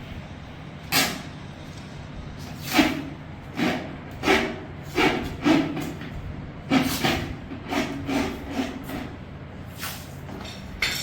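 About a dozen irregular knocks on plywood woodwork, struck at uneven intervals over a steady low hum.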